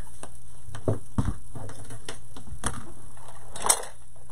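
Scattered knocks and clicks of ribbon spools being picked up and set down on a craft table, about five in four seconds, the sharpest one near the end.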